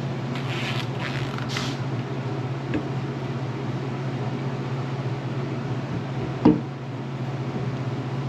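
Fuel-pump locking ring being fitted onto a fuel cell: light scraping and handling noises at first, then one sharp metal knock about six and a half seconds in, over a steady low hum.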